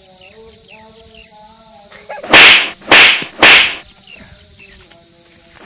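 Steady high-pitched insect buzzing, broken by three loud, short rushing noises about two seconds in, half a second apart, and another just at the end.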